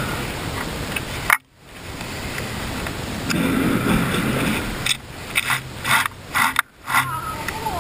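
Hands working on a Stihl top-handle chainsaw with its engine off: a series of short mechanical clicks, knocks and scrapes, bunched in the second half.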